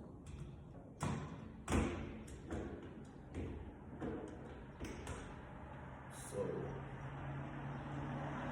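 A series of irregular knocks and clunks as metal door-lever hardware is handled and fitted against the door, the loudest about two seconds in. A low steady hum comes in near the end.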